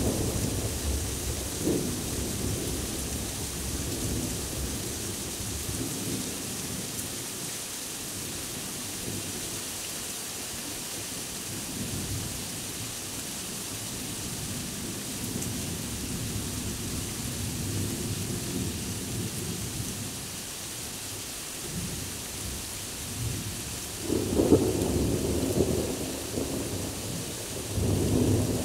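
Thunderstorm: heavy rain falling steadily, with low rolling thunder. A rumble is fading at the start, and a louder peal of thunder rolls in about 24 seconds in, with another swell near the end.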